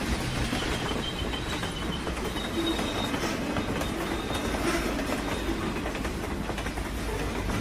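Train running on rails: a steady low rumble with the clickety-clack of wheels over the rail joints. A faint high wheel squeal comes in for a few seconds in the first half.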